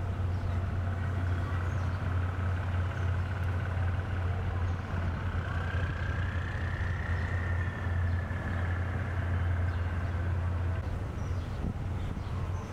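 Steady low drone of diesel railway engines running at a station, with a faint high whine that rises and falls about six to eight seconds in.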